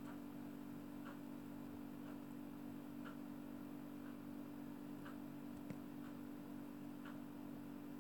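Faint, regular ticking at about one tick a second over a steady low hum, with one sharper click a little past the middle.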